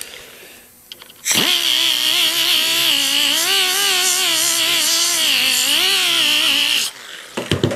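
Air-powered angle grinder with a 3-inch sanding disc grinding the edge of a rolled steel trim piece, to fit it to the channel. It starts about a second in and runs for about five and a half seconds, its whine wavering in pitch as the disc is pressed into the metal, then stops shortly before the end.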